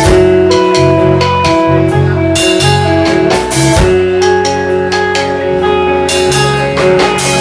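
Live rock band playing the instrumental opening of a song: guitar notes held over a drum kit, with regular drum and cymbal strikes.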